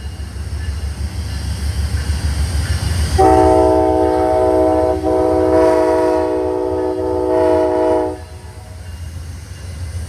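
Amtrak locomotive's air horn sounding one long chord of about five seconds, starting about three seconds in, over the steady low rumble of the train.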